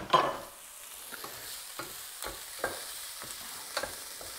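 Chopped onion, chilli, garlic and ginger sizzling in hot olive oil in a frying pan. A burst of louder sizzling just after the start dies away within about half a second, then a wooden spatula stirs, ticking against the pan about twice a second over a steady sizzle.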